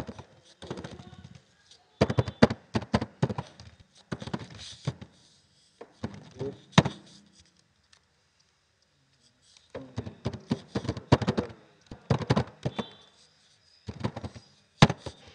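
Rapid keystrokes on a computer keyboard, coming in several bursts of clicks with short pauses between.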